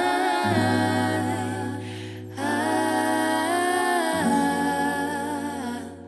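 Background music of slow, held vocal notes like humming, with the chord changing about every two seconds.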